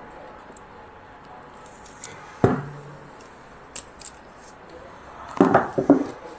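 MC4 crimping tool crimping a copper contact onto a PV cable: a sharp snap with a brief ring about two and a half seconds in as the jaws close and release, with a few small clicks from the tool and contact, and a cluster of clicks near the end.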